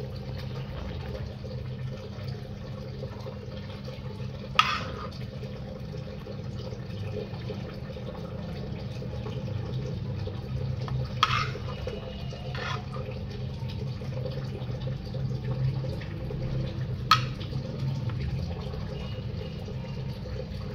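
Gas stove burner running steadily under an iron tawa, a low rumbling hiss with a hum. A knife scores naan dough on the tawa, its blade clicking sharply against the iron four times.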